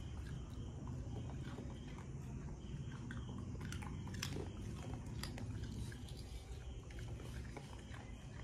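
Small dog chewing and crunching a small treat, with irregular sharp crunches.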